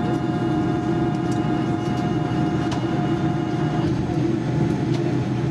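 General Electric GEnx-1B turbofan of a Boeing 787-9 running at idle, heard from inside the cabin beside the engine: a steady hum under a whine of several high tones, which fade out about four seconds in.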